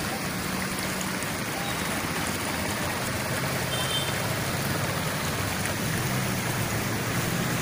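Floodwater flowing across a paved street: a steady rushing, with a faint low engine hum underneath.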